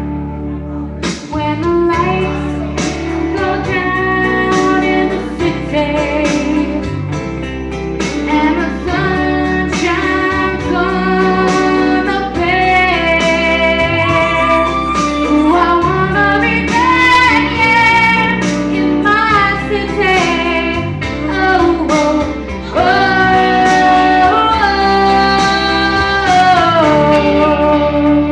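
A woman singing a melody with long held notes over strummed guitar chords.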